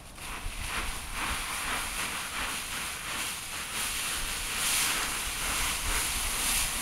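Dry autumn leaves rustling, with many small crackles, as a child plunges into a leaf pile and moves around in it.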